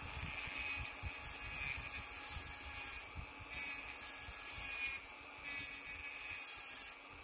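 Dremel rotary tool with a thin cut-off disc running at speed, grinding a small notch into the inside edge of a gramophone's metal brake lever. The steady motor whine is overlaid with a hissing grind that gets louder in short stretches as the disc bites, about halfway through and again near the end.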